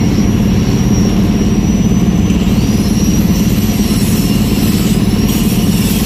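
An engine running steadily at an even speed, a loud low hum with a fast, even pulse.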